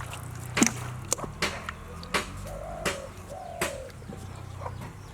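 Two short calls that rise and fall, like a bird's cooing, about halfway through, amid a series of sharp knocks and splats and a steady low hum.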